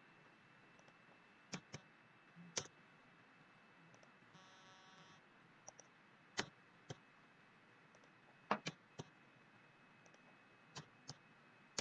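Faint, scattered clicks of a computer mouse and keyboard, about ten in all in small groups, as spreadsheet formulas are edited. A brief buzz sounds a little after four seconds in, over a faint steady high tone.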